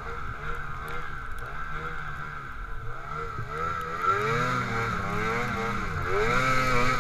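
Snowmobile engine heard from on the sled, revving up and down again and again as it pushes through deep snow. It gets louder about four seconds in.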